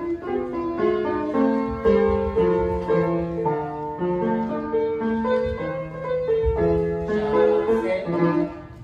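Piano music accompanying ballet class exercises: a melody over chords, the notes changing steadily throughout.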